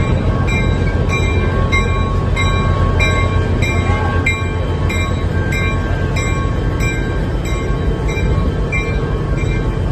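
Passenger train running, a steady low rumble, with a short ringing sound repeating about twice a second.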